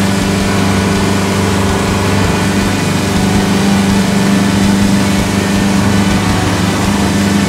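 Yamaha 175 hp four-stroke outboard motor running steadily with the boat under way at speed: an even drone over the rush of the churning wake.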